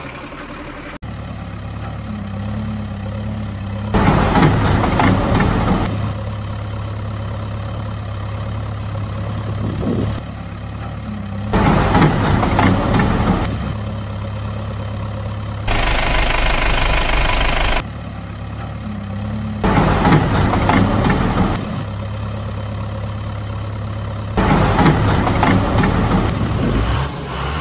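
Engine idling with a steady low hum, rising to louder revving surges four times, about every eight seconds. A two-second hiss comes near the middle.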